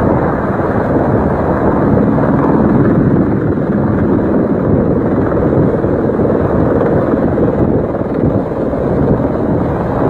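Helicopter hovering low, its rotor and engine noise steady and loud, with wind buffeting the microphone.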